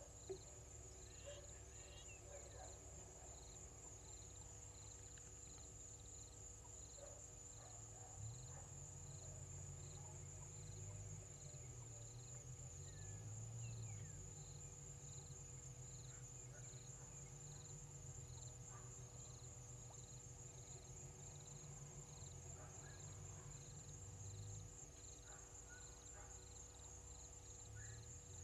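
Faint, steady high-pitched trill of insects in the bush, with a softer chirp repeating at an even pace alongside it and a low rumble underneath.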